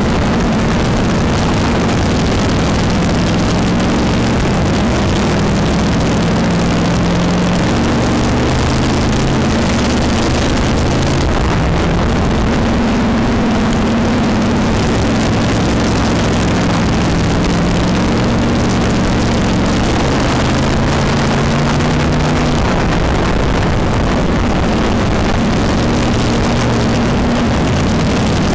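Dirt-track race car's engine heard from inside the car, running hard with its pitch rising and falling every few seconds as it accelerates and eases off, over a constant loud rush of wind and track noise.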